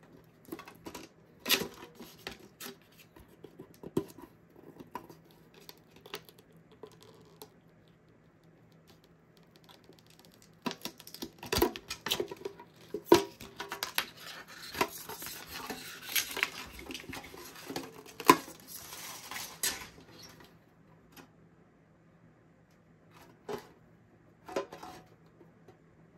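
A metal collector's tin and a hobby tool being handled: scattered clicks and light metallic taps. A little past halfway come several seconds of plastic crinkling, as the tin's shrink-wrap is cut and pulled off.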